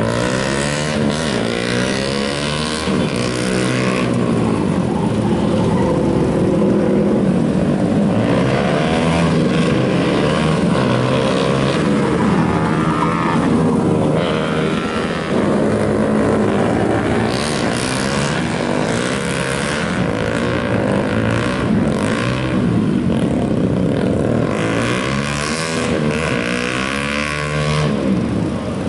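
Yamaha Vixion single-cylinder four-stroke motorcycle engines revving, their pitch sweeping up and down over and over, with more than one bike revving at once at times.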